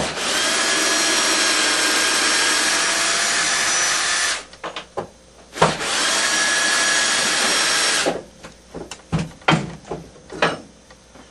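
Power drill running in two steady bursts, about four seconds and then about two seconds, plausibly backing out the screws that hold the axe head in the sharpening jig; short knocks and clicks of handling follow.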